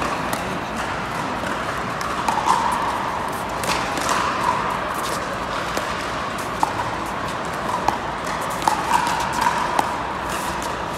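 Pickleball rally on an indoor hard court: sharp pops of paddles striking the plastic ball at irregular intervals, coming faster near the end as the players trade quick volleys at the net. Short sneaker squeaks on the court and a steady crowd murmur run under the hits.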